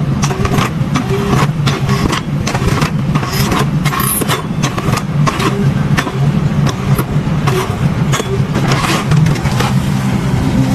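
An engine running steadily, with frequent sharp clacks and knocks over it.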